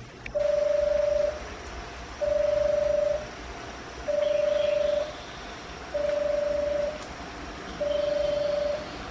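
Station warning tone for an approaching train: a steady electronic beep about a second long, repeated five times at roughly two-second intervals.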